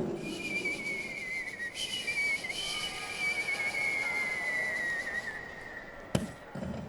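A man's vocal impression of a firework shell whistling as it climbs: one long wavering whistle, slowly falling in pitch, that fades out after about five seconds. It is followed by a single sharp pop about six seconds in.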